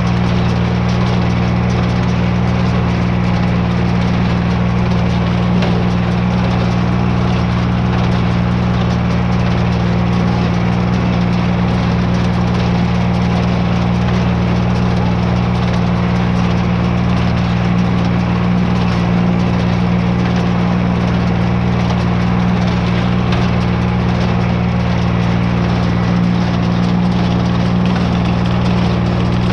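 Tractor engine running steadily at a constant speed, a heavy, even drone with no changes in pitch.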